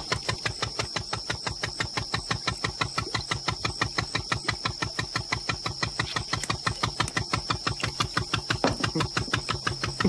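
Long-tail boat engine running steadily, an even fast chug of about eight beats a second.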